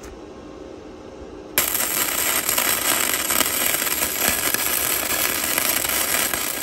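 Wire-feed welder arc crackling steadily as a steel tab is tack-welded onto square steel tubing, starting about one and a half seconds in and lasting about five seconds.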